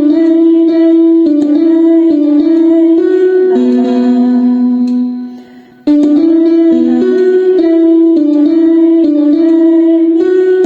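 Music: a slow melody moving step by step in long held notes. It breaks off for a moment about five seconds in and then starts a new phrase.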